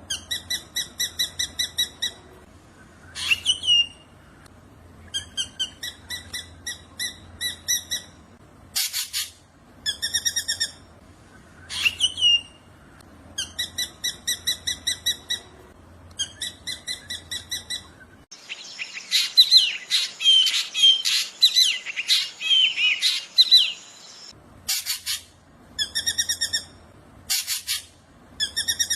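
Drongo singing: trains of rapid, evenly repeated nasal notes, broken by a couple of rising whistles and short harsh calls. For about six seconds past the middle, a denser jumble of quick chirps takes over.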